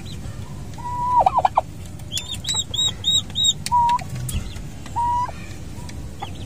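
Domestic turkey hen and her newly hatched poults calling: a few short, level calls that drop off quickly at the end, spaced a second or more apart, and a quick run of four higher peeps about two to three seconds in.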